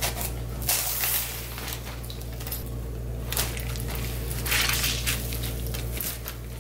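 Thin plastic bag crinkling and wet salted napa cabbage leaves rustling and squishing as the cabbage halves are lifted out and piled into a plastic colander to drain, in irregular bursts.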